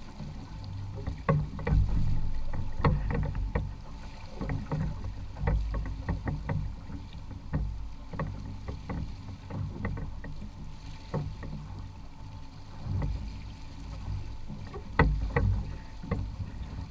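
Water sloshing and lapping against the hull of a small boat under way, over a steady low rumble, with irregular light knocks and ticks throughout.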